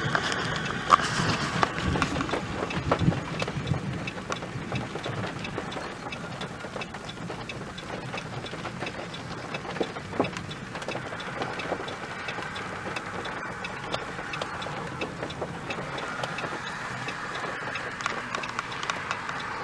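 Strong gusty wind blowing across an open grassy field and buffeting the microphone, roughest in the first few seconds, then settling to a steadier rush with scattered small clicks.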